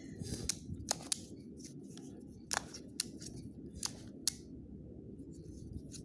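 QiYi plastic twisty puzzle being turned by hand: a string of irregular sharp plastic clicks as its layers snap round, over a soft rubbing of the turning pieces.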